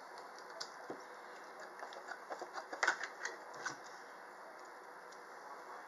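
Oyster knife clicking and scraping against an oyster shell while shucking, a run of small sharp clicks about two seconds in, the loudest near the middle.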